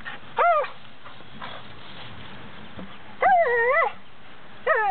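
Dog whining three times, high and urgent: a short falling whine, then a longer one that wavers up and down, then another short falling whine. It is eager whining at a mouse the dog is after.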